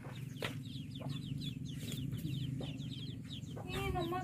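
A brood of young birds peeping rapidly in many short, falling chirps, with a mother hen clucking low near the end.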